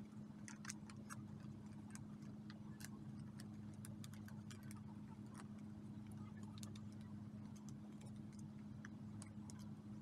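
Faint, irregular light clicks and crinkles of paper as a hand presses and smooths a glued collage onto a journal page, over a steady low hum.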